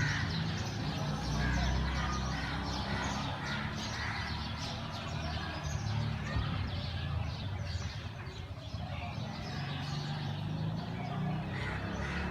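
Outdoor ambience: many small birds chirping, over a steady low rumble.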